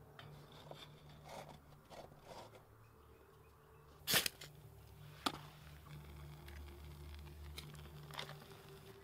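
Handling sounds of clay pottery being set on a metal wire grill in a pit kiln: light clicks and taps, a sharp knock about four seconds in and a smaller one a second later, over a low steady hum.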